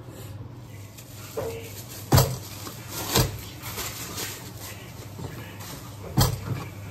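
A large ball of bread dough being handled on a wooden counter: sharp thumps about two seconds in, about three seconds in and near the end, with thin plastic rustling between them. A steady low hum runs throughout.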